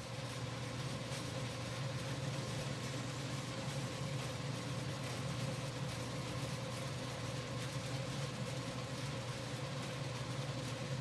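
Metal lathe running with hex bar stock spinning in its collet chuck while the end is faced off: a steady machine whir over a low hum.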